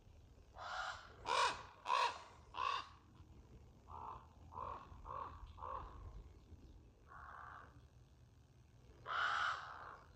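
A crow cawing repeatedly: a quick run of four loud caws, then four softer ones, a single caw, and one more loud caw near the end.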